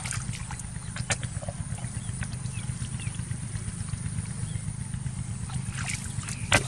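Boots squelching and splashing through shallow mud and water, with scattered sharp splashes or knocks, the loudest near the end, over a steady low rumble.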